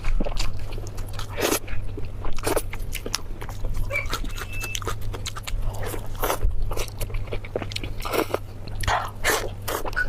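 A person chewing and biting food with irregular wet chews and crunches, eating spicy pork belly.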